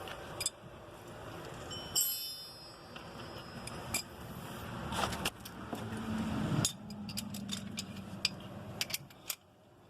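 Hand tools and steel fasteners clinking and scraping during work on a car's front hub and strut, in scattered light taps, with one ringing metallic clink about two seconds in.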